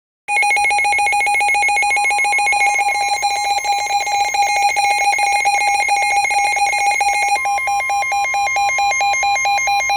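Electronic emergency alert tone that warbles rapidly and switches to a slower pulsing pattern about seven seconds in, then cuts off suddenly. It is the alert signal that opens a Special Marine Warning broadcast.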